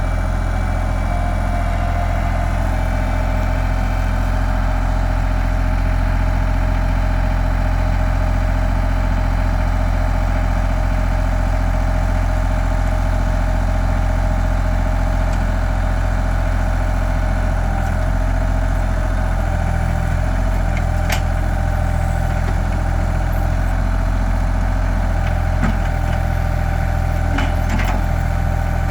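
Bad Boy 4025 compact tractor's engine running steadily at a constant speed, with a few faint sharp ticks near the end.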